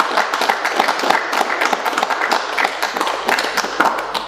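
Audience applauding with many individual claps, dying away near the end.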